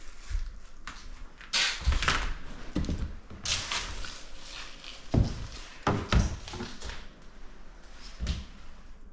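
A string of irregular thuds, knocks and scuffing noises in a small room, about eight of them, spaced unevenly.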